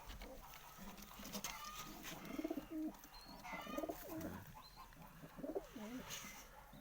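Domestic pigeons cooing, several low wavering coos in a row, with a few higher bird chirps between them.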